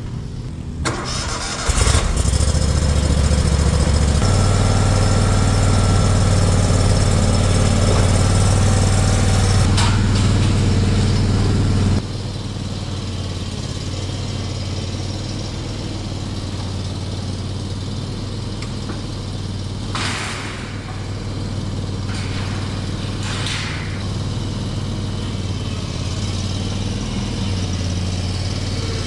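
Skag V-Ride stand-on zero-turn mower's engine starting up about two seconds in and running steadily. About twelve seconds in it drops suddenly to a quieter level and keeps running.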